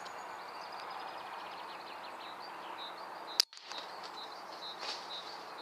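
A single air rifle shot about three and a half seconds in, one short sharp crack, fired at a woodpigeon in the trees. Under it, a steady outdoor hiss with birdsong chirping.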